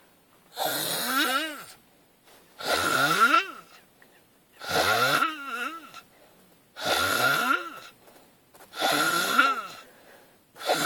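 A person snoring in sleep: five snores about two seconds apart, each about a second long with a pitch that wavers up and down, and a sixth beginning near the end.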